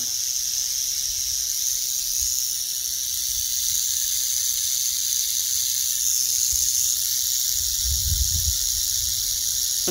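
Timber rattlesnake rattling its tail without a break, a steady high-pitched buzz: its defensive warning.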